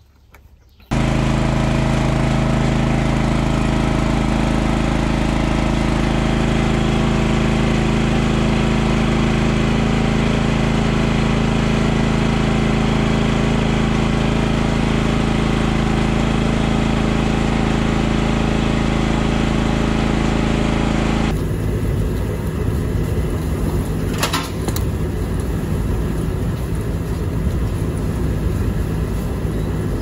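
A machine's engine running steadily at an even pitch, starting abruptly about a second in. About twenty seconds in it switches abruptly to a rougher, rattling machine sound with a couple of sharp clicks.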